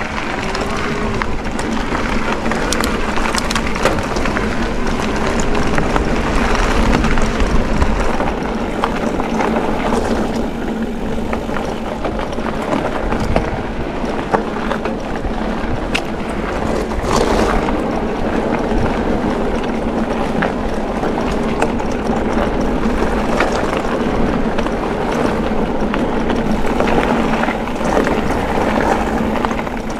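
Specialized Levo electric mountain bike ridden along a gravel trail: steady tyre noise on the gravel, with many small clicks and knocks from the bike jolting over the surface.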